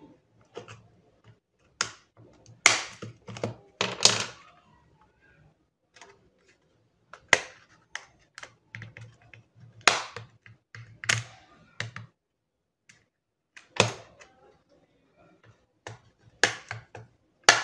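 Plastic back cover of a TI BA II Plus calculator being pried off with a screwdriver: a series of irregular sharp clicks and snaps as the clip tabs let go, with scraping and handling noise between.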